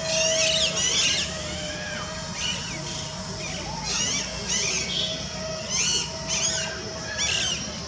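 A bird calling over and over in short, high two-part chirps, a pair about every couple of seconds, over a steady background hiss with a faint thin hum that comes and goes.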